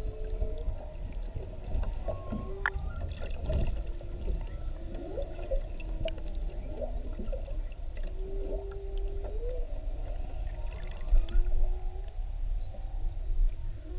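Humpback whale song heard underwater: a string of moans and short tones that glide up and down, with a few higher squeaks, over a steady low underwater rumble.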